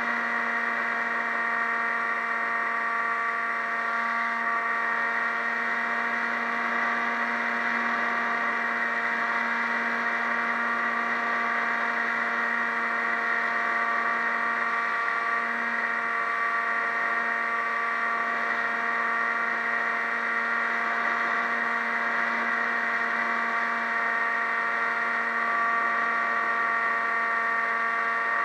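Motor and propeller of a radio-controlled model plane running at a steady, even pitch in flight.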